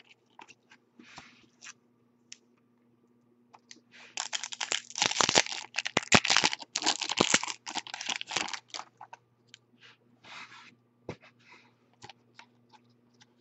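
Foil trading-card pack wrapper torn open and crinkled for about five seconds, loud and crackly. Faint, scattered clicks of chrome cards being handled come before and after.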